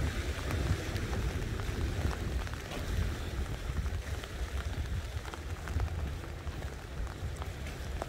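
Wind buffeting the microphone in a fluctuating low rumble, under a steady hiss scattered with small crackling ticks.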